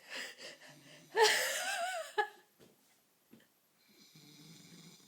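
A man snoring in his sleep: low, buzzing snores, the longest and steadiest near the end. Between one and two seconds in comes a louder, high, wavering voice-like sound.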